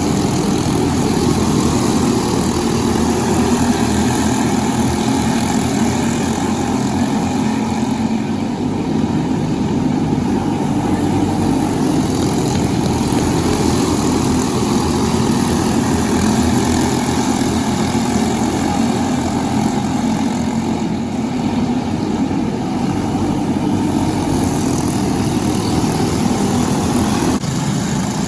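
Briggs & Stratton LO206 kart engines, small single-cylinder four-strokes, running steadily on track.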